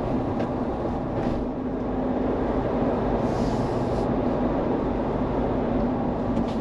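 Steady engine and road noise of a Mahindra Thar climbing a winding mountain road, heard from inside the cabin, with a constant low hum under it.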